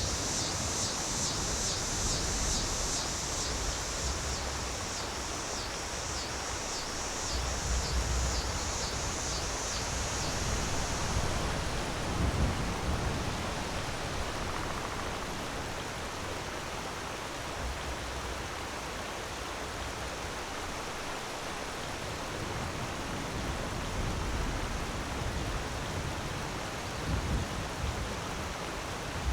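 Waterfall: a steady rush of falling water. For about the first ten seconds a fast-pulsing high hiss sits over it, then fades out.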